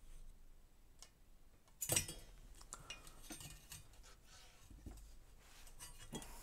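Small hard clicks and rattles of plastic and a circuit board as the board is worked loose from its plastic mounting. The loudest click comes about two seconds in, with lighter ticks scattered after it.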